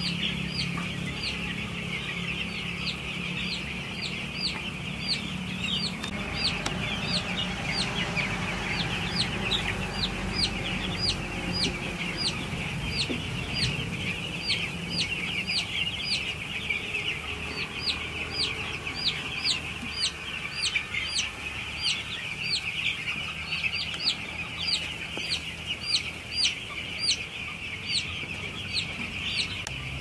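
A shed full of young broiler chicks peeping: a dense chorus of many overlapping short, high cheeps, each dropping quickly in pitch. A low steady hum sits beneath the chicks for roughly the first half.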